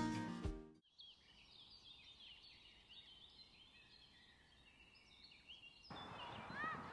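Songbirds chirping outdoors, many short overlapping calls, faint at first after guitar music fades out in the first second. About six seconds in, louder birdsong comes in over a steady background noise.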